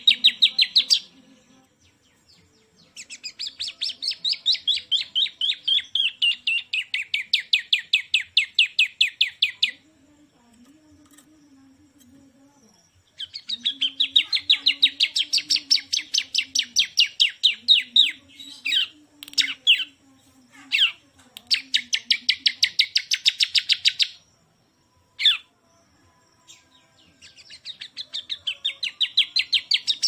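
Caged bar-winged prinia (ciblek) singing: long, rapid trills of evenly repeated high notes, each lasting several seconds, with a few short sharp single notes between the trills.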